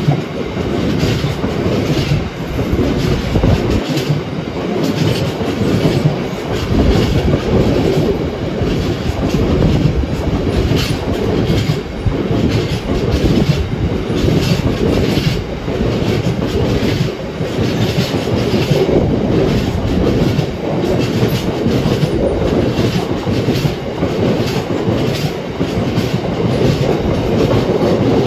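Freight train wagons rolling past, their wheels clattering over the rail joints in a steady, regular rhythm with a continuous rumble.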